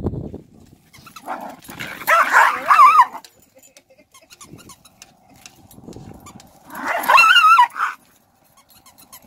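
Small dogs barking and yapping at play, in two short bouts, one about two seconds in and one about seven seconds in, with quieter scuffling between.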